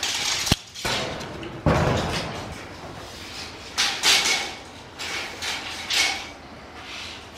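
Steel tape measure being pulled out and laid along a concrete floor: a sharp click about half a second in, then several short rattling, scraping bursts.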